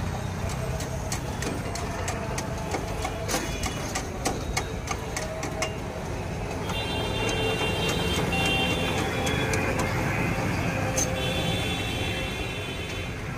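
Quick metallic clicks and taps of hand tools working on an e-rickshaw's rear wheel hub, over a steady low rumble of street noise. Later a high tone sounds twice, for a couple of seconds each time.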